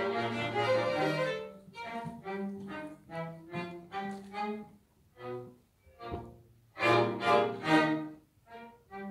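String quartet playing live: a held chord, then short, separated bowed notes about two a second, with a brief pause past the middle and a louder passage near the end.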